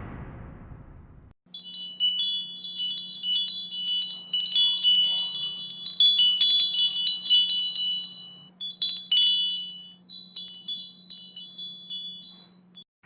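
Chimes tinkling: many high ringing notes struck in quick, irregular succession, starting about a second and a half in, over a faint steady low hum.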